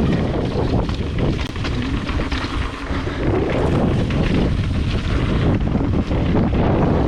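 Wind buffeting a camera microphone on a full-suspension mountain bike descending a trail, with constant rumble from the tyres and frequent rattles and knocks of the bike over rough ground.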